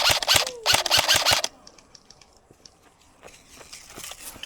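Airsoft gun firing a rapid string of shots for about a second and a half, then stopping abruptly, leaving only faint scattered pops.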